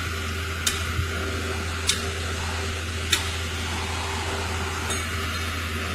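Concrete pump truck running steadily, a low engine drone with a steady hum over it, broken by short sharp clicks about every second and a bit, three of them in the first half and a fainter one near the end.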